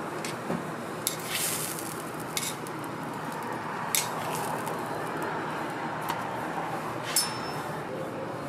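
Food sizzling steadily on a flat steel griddle, with a few sharp clicks and clinks of metal tongs against the griddle and the food as ham slices and pickle rounds are laid out.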